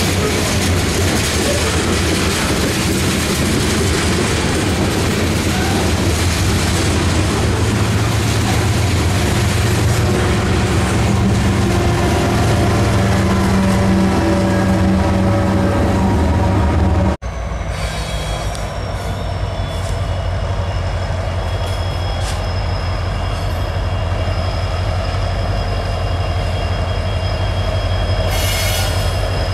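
Loaded freight train rolling close by: covered hopper cars clattering over the rails, then a diesel-electric locomotive passing with a low engine drone that swells about halfway through. After an abrupt cut, a slower train with a diesel locomotive rumbles at a distance with steady high-pitched wheel squeal and a brief hiss near the end.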